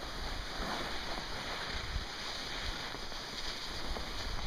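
Skis sliding over packed snow in a steady hiss while skiing downhill, with wind rushing on the microphone.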